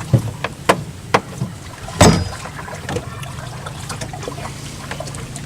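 Water splashing and trickling, with several sharp knocks, the loudest about two seconds in.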